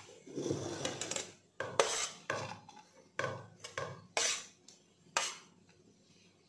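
Stainless steel plate scraped and knocked against the rim of a bowl as grated guava is tipped off it: a rubbing scrape at first, then about six sharp knocks, a second or less apart.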